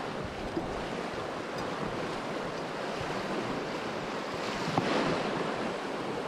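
Fast river water rushing steadily, with a light click about five seconds in.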